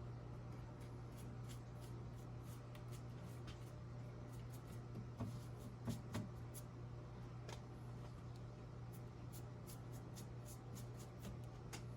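Paintbrush working paint onto the wooden clock: faint scratchy brushing with scattered light ticks and a few soft knocks, over a steady low hum.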